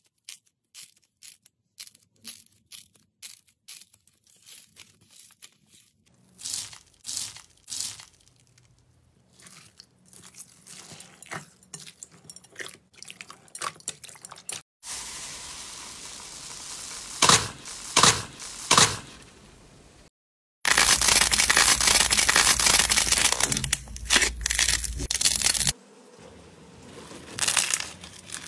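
Hands squeezing, kneading and stretching slime: irregular sticky pops and clicks, then a stretch of dense, loud crackling about two-thirds through that stops abruptly.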